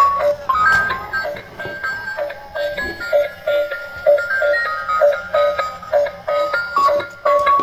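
Simple electronic jingle: a tinkly tune of short stepping notes over a steady pulse of repeated lower notes.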